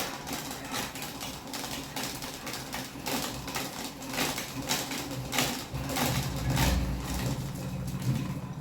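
Noisy electric fan running: a low hum with irregular rattling clicks. The hum grows stronger from about six seconds in.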